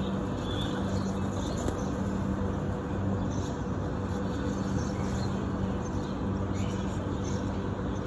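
Steady low urban background hum, the even drone of city traffic and building machinery, with a few faint high bird chirps scattered through it.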